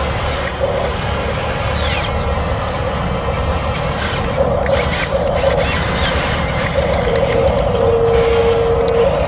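Huina RC bulldozer's electric drive motors and gearboxes running, a gritty mechanical grinding and ratcheting as it works, with a steady whine for about a second near the end.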